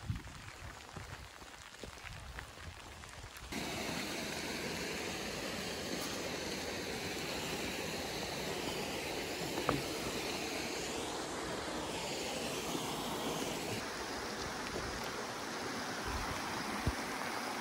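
Steady hiss of rain that comes in suddenly about three and a half seconds in; before that only faint taps and rustling.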